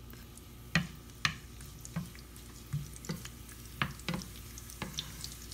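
Sliced garlic and whole chillies frying in hot ghee in a non-stick pan for a tempering, with a faint sizzle. A wooden spatula stirs them, giving about a dozen irregular sharp clicks and light knocks against the pan.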